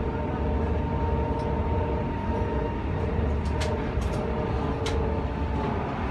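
Low-floor metre-gauge tram running, heard from the driver's cab: a steady low rumble with a humming whine from the electric drive, and a few sharp clicks around the middle.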